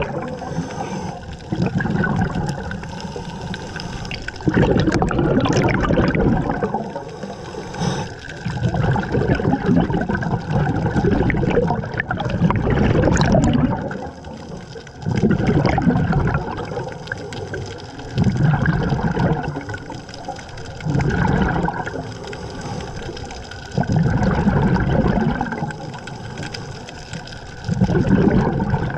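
Scuba diver breathing underwater through a regulator: a burst of exhaled bubbles gurgling out about every three to four seconds, with quieter noise between breaths.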